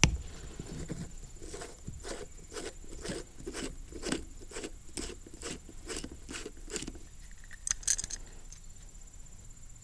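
A screwdriver working the main jet out of a small-engine carburetor: a run of regular metal clicks, about three to four a second, then a couple of sharper clicks near the end as the loosened jet is tipped out of the carb body.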